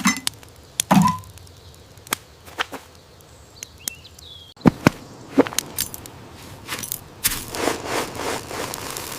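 A string of sharp clicks and knocks, with a short voice-like sound about a second in and a rustling noise that thickens near the end.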